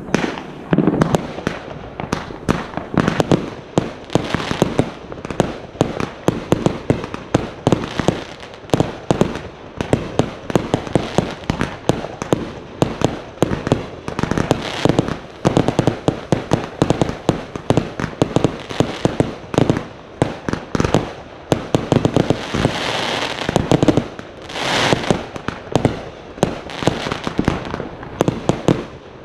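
Consumer fireworks going off in a dense, unbroken barrage of sharp reports, many each second. Stretches of crackling hiss come through near the end.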